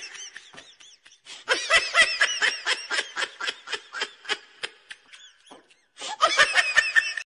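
High-pitched laughter in quick, repeated ha-ha pulses, coming in three stretches with short breaks about a second in and about five and a half seconds in.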